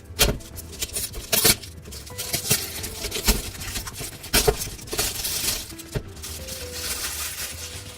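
A cardboard box being opened by hand: a run of sharp knocks and crackles in the first half, then a longer stretch of rustling and tearing. Soft background music plays underneath.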